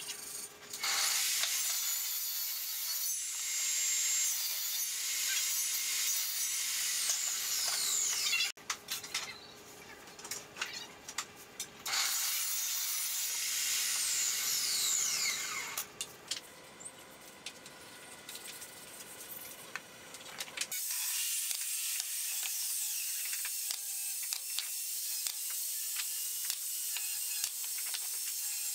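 Wooden jig pieces handled and fitted together on a wooden workbench: scraping, light knocks and clicks of wood on wood, over a steady hiss.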